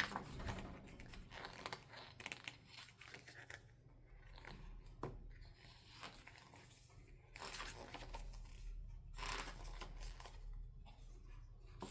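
Pages of a K-pop album photobook being turned and handled: soft, irregular paper rustles and swishes.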